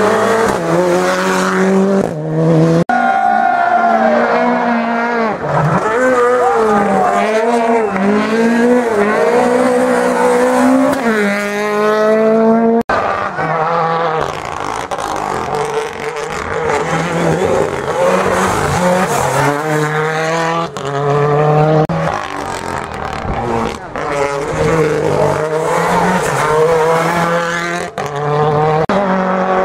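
Rally cars passing one after another, their engines revving hard and shifting up and down through the gears, with steep rising revs as a car accelerates away. The sound breaks off abruptly at edits between passes.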